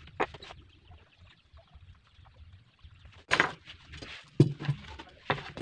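Hand tools being handled on a plywood workbench: scattered light knocks, a short scraping rustle a little past three seconds in, and a sharp knock soon after.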